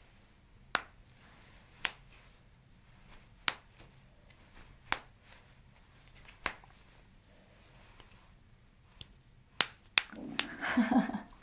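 Finger and hand joints being manipulated by a chiropractor, each cracking with a single sharp pop. There are about eight pops, a second or so apart, with two close together near the end.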